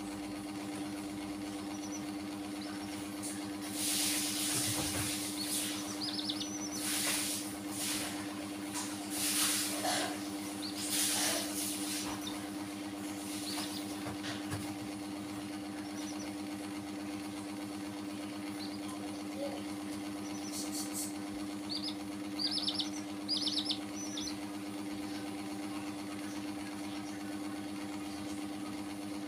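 A steady machine hum runs throughout, with several bursts of hissing noise in the first half. Past the middle come a few quick, high peeps from the young chicks.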